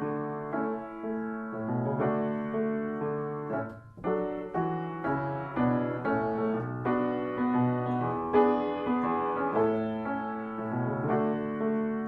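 Background piano music, slow notes struck one after another and left to ring, with a brief pause about four seconds in.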